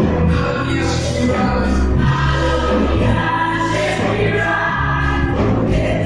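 Live gospel praise and worship music: a choir singing over a band with a strong bass line.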